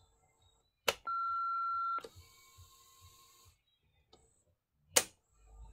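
Panasonic KX-T2727BS answering machine at the end of its greeting: a sharp click, then a steady beep held for about a second, the tone that follows the outgoing message. Then come a click, a short hiss, and two more clicks, the loudest near the end.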